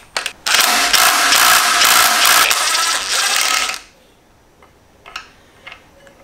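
Small cordless impact gun hammering on the 17 mm oil pump sprocket nut of a BMW M52B28 engine to undo it, running steadily for about three seconds and then stopping. A couple of light clicks follow.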